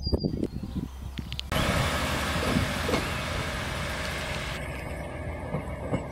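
ScotRail Class 156 diesel multiple unit pulling away from the platform, its diesel engine running with a steady hum and a hiss over the top that drops away a little past halfway. Before it, for about the first second and a half, a dull rumble with a few knocks.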